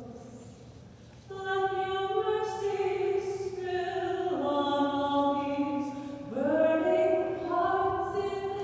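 Live singing voice holding long, sustained notes, coming in about a second in, stepping down to a lower note midway and scooping up into a higher one near the end.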